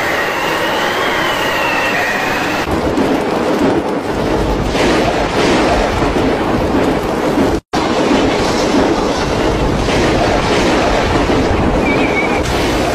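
Loud, steady roar of a violent storm: strong wind and heavy rain, with rushing floodwater in the first few seconds. A high wavering whistle sounds over the first couple of seconds, and the sound drops out for an instant a little past halfway.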